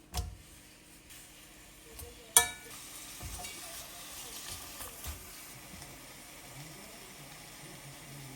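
Food sizzling in a frying pan while it is stirred. A sharp metallic clink of a utensil against the pan about two and a half seconds in is the loudest sound, and a steady sizzle follows it.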